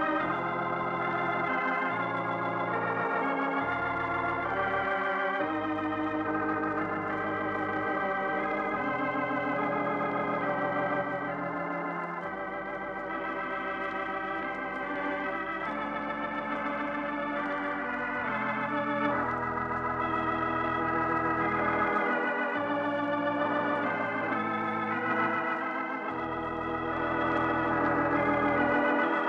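Organ music: sustained chords with vibrato over a bass line that changes note every few seconds.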